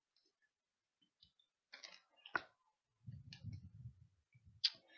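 Faint handling of a plastic snack wrapper: a short crinkle ending in a sharp click about two seconds in, a low muffled sound a second later, and another click near the end.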